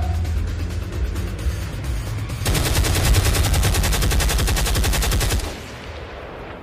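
Rapid-fire gunfire sound effect: a fast, even volley of shots starts about two and a half seconds in and lasts about three seconds before fading. A low rumble runs under it and before it.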